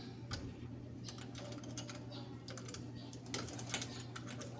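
Faint, scattered clicks and light taps of small hardware being handled as a screen door closer is worked into place, with a few louder clicks over a second before the end.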